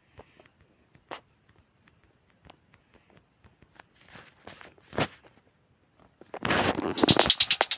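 Scattered faint clicks and knocks with a couple of short rustling swishes, and one sharper knock about five seconds in. Loud music starts about six and a half seconds in.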